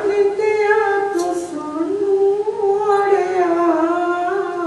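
A single voice singing a slow devotional line in long, held notes that slide up and down in pitch.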